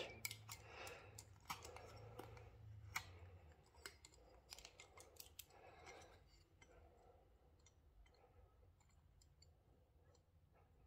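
Faint clicks and light scratching of a small metal bar-end mirror adapter being handled and fitted by hand, fading to near silence after about six seconds.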